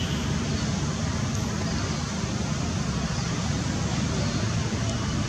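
Steady low rumbling background noise, even throughout, with no distinct calls or knocks standing out.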